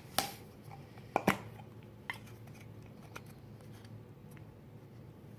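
A few light clicks and knocks, as of a small camera being handled and set upright: two sharper ones in the first second and a half, then fainter ticks over a low steady hum.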